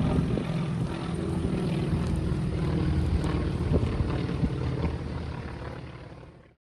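Steady low engine drone with a few faint clicks, fading out over the last second or two to silence.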